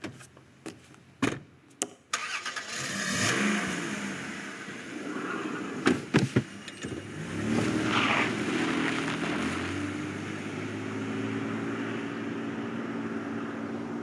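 A car engine starts and runs, with two knocks like car doors shutting about six seconds in, then the car pulls away, steady to the end. A few light clicks come in the first two seconds.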